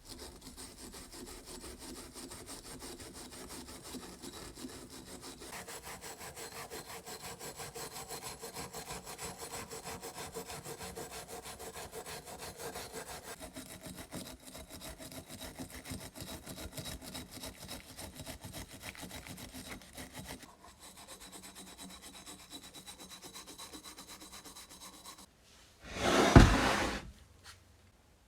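A saw cutting through wood with steady, fast back-and-forth strokes, the tone of the cut shifting a few times. Near the end comes a short, loud, noisy burst about a second long.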